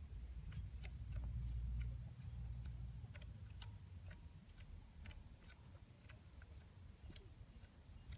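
Scattered light clicks at irregular intervals over a faint low rumble that fades out about three seconds in.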